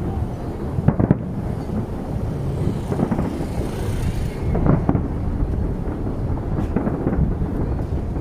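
Fireworks display: aerial shells bursting, a continuous low rumble of booms with sharper bangs about a second in and again around three, five and seven seconds.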